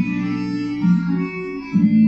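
Ballet class accompaniment music for a RAD Grade 5 centre exercise: sustained keyboard chords that change twice.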